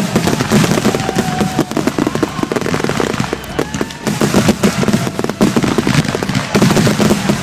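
Fireworks finale: a rapid, unbroken barrage of aerial shell bursts and crackling, many bangs a second.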